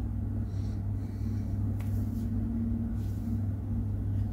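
Steady low hum in the background, with a single faint click a little under two seconds in.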